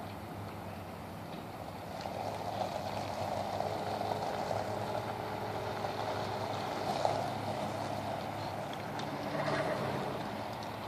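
Jeep Wrangler SUV engine running as the vehicle drives slowly across a gravel lot, growing louder from about two seconds in and easing off near the end.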